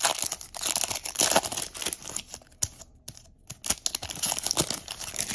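2024 Bowman Baseball pack wrapper crinkling as it is opened and handled, in irregular crackly bursts with a short lull about three seconds in.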